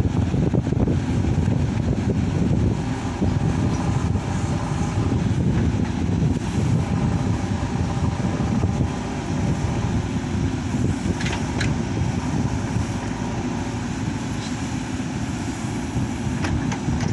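Diesel engine of a JCB backhoe loader running steadily, with a few faint clicks around the middle and near the end.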